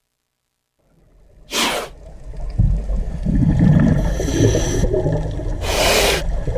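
A snake hissing in two short hisses about four seconds apart, over a steady low rumble of background noise that fades in about a second in.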